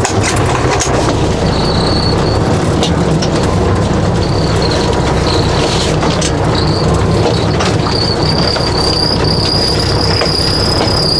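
Semi truck's diesel engine running while backing slowly, with a high squeal that comes and goes and then holds steady over the last few seconds.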